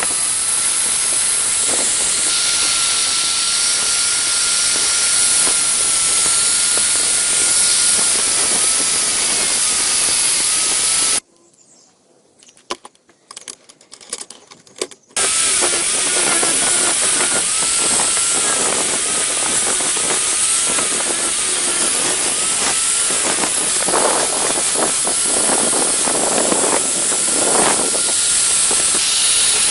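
Electric power tool running steadily with a high whine and a dense hiss, its pitch wavering slightly under load as it works the rusty hammer. About eleven seconds in it cuts off for roughly four seconds, leaving only a few light clicks, then starts up again.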